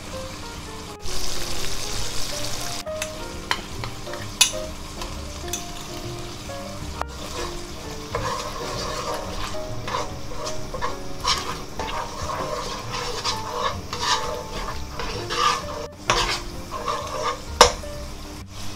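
Red curry paste sizzling in a hot non-stick wok, loudest about a second in as fish sauce goes into the pan. From about the middle on, a metal spoon scrapes and clicks against the pan as the paste and sugar are stirred.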